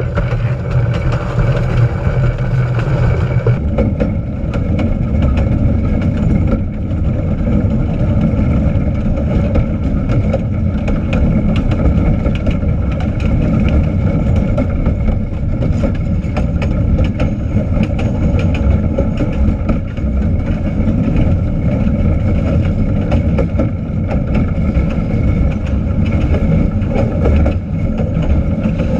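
A small train running along the track: a steady low rumble of engine and wheels with frequent short clicks and rattles. The sound changes abruptly about three and a half seconds in.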